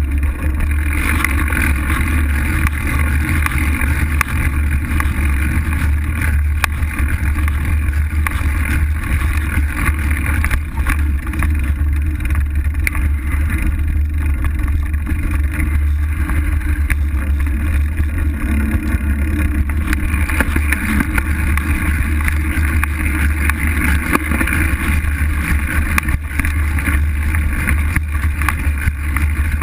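Steady noise of a fat-tyre bike riding a dirt trail: tyres rolling over packed dirt and wind buffeting the bike-mounted camera, with a few faint knocks from bumps.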